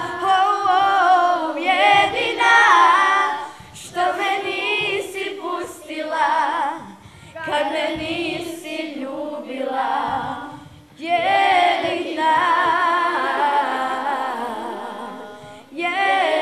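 A group of schoolchildren, boys and girls, singing a song together without accompaniment, in phrases broken by short pauses for breath.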